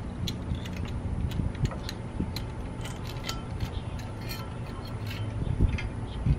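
Light, irregular metallic clicks and scrapes of hands working a disc brake caliper against its rotor and mounting bracket, with a couple of dull knocks near the end.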